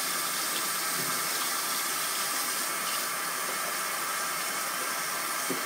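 A steady hiss that does not change, with a faint soft tick about a second in and another near the end.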